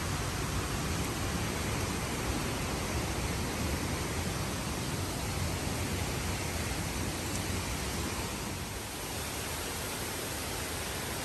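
Steady rush of falling water from the creek and falls along the Dingmans Falls trail, an even hiss that eases slightly about nine seconds in.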